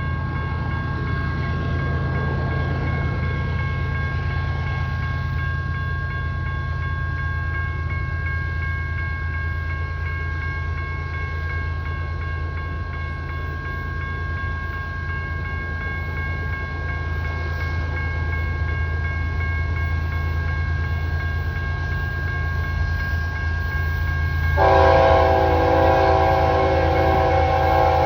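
Approaching CSX freight train: diesel locomotives running with a steady low rumble, with a steady high ringing over it. About three-quarters of the way through, a locomotive's multi-chime air horn blows one long chord, the loudest sound, still held at the end.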